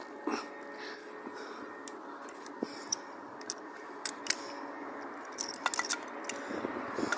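Scattered light metallic clicks and taps from a sliding clamp being worked to press a Whiteline insert into a Subaru transmission mount, with two sharper clicks about a second and two and a half seconds in.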